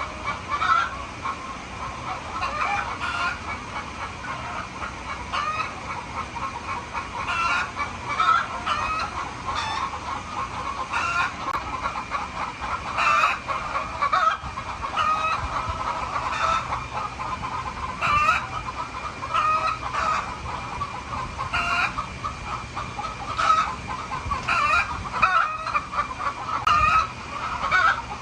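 A flock of hens clucking, with a louder short call every second or two.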